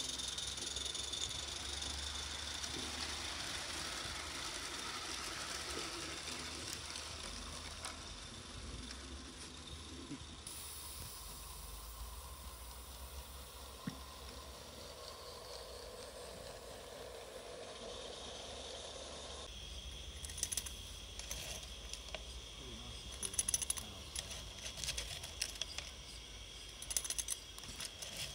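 Live-steam coal-fired garden-railway locomotive hissing steadily as it runs, the hiss fading away over the first two-thirds. Near the end, scattered small clinks and rattles from hands working at the locomotive's coal-filled tender, over a steady hiss.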